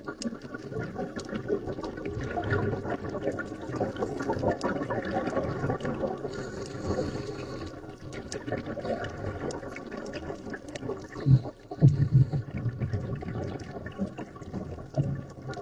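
Underwater sound of a scuba diver breathing through a regulator: exhaled bubbles gurgle and burble, over a running crackle of small clicks. The bubbling comes in louder bursts about eleven and twelve seconds in.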